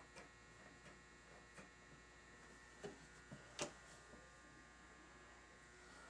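Near silence with a steady electrical hum, broken by a few faint clicks as the seater plug of a Lee bullet-seating die is screwed down by hand; the sharpest click comes about three and a half seconds in.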